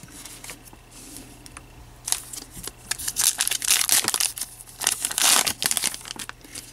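Wrapper of an Upper Deck Goodwin Champions trading card pack crinkling and tearing as it is pulled open by hand. The crackles and rips start about two seconds in and keep going until near the end.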